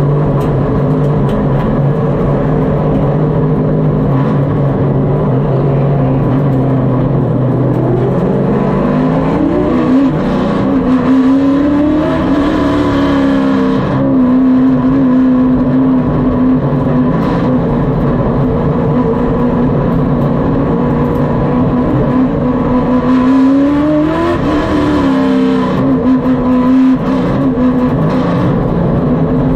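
Race car's engine heard from inside the car, running at a steady low pitch, then revving up about eight seconds in and holding at a higher steady pitch as the car picks up speed, with another brief rise and fall near the end.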